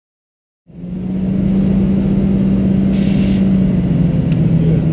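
Sportbike engine held at a steady high rev during a burnout, with a heavy low rumble. It comes in suddenly just under a second in, and the pitch sags slightly near the end.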